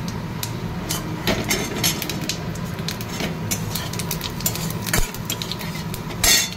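Whole white cumin seeds crackling in hot oil in a kadai, with a metal spatula scraping and tapping against the pan as they are stirred; the many small sharp clicks ride over a steady low hum, and there is one louder, longer burst shortly before the end.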